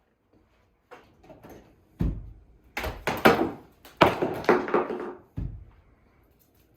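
A series of about seven irregular heavy knocks and thuds, each ringing briefly: demolition blows on masonry.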